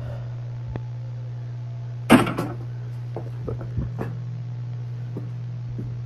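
Steady low hum, with one loud sudden knock about two seconds in and several fainter knocks and bumps over the next two seconds.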